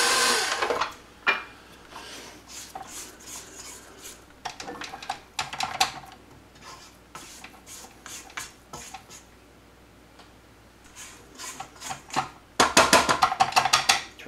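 A KitchenAid stand mixer's motor cuts off within the first second. Then a silicone spatula scrapes and taps around the stainless steel bowl and flat beater, working flour and dough off them, with a louder run of scraping and clatter near the end.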